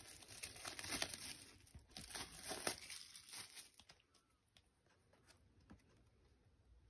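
Clear plastic shrink wrap being torn and peeled off a photobook album, crinkling and crackling for about three and a half seconds before going quiet.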